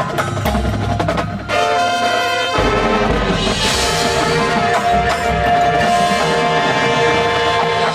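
High school marching band playing: brass holding loud chords over drums, with a deep low-brass bass coming in about two and a half seconds in.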